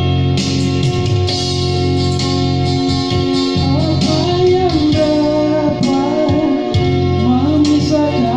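Music: guitar playing steady accompaniment, with a wavering, bending melody line coming in about halfway through.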